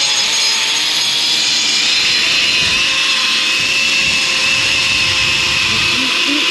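Steady loud rushing hiss with no distinct events, strongest in its upper range.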